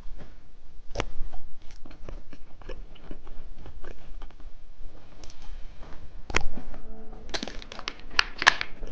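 Close-miked eating of a hamburger-shaped gummy candy: irregular crunchy bites and chewing clicks, with the sharpest snaps about a second in, about six seconds in, and a quick run of them near the end.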